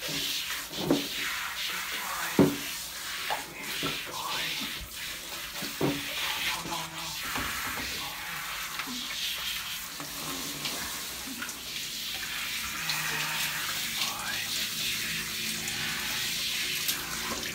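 Water spraying steadily from a handheld shower head onto a dog's wet, soapy coat in a bath tub, with a few sharp knocks in the first six seconds.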